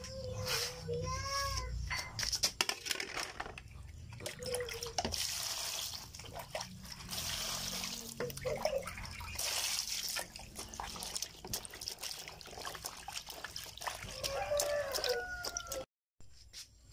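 Vegetables being washed by hand in a plastic basin of water: water poured in and sloshed around, with splashes and drips. The splashing comes in two heavier spells, about five and nine seconds in.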